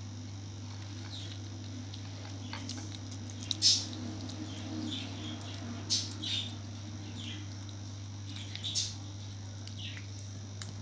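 Kitten eating wet cat food from a bowl: soft wet chewing and smacking, with a few louder smacks about three and a half, six and nine seconds in, over a steady low hum.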